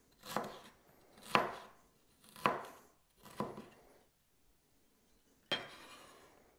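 Chef's knife chopping fresh ginger on a wooden chopping board: four knife strokes about a second apart, then a pause and one more stroke near the end.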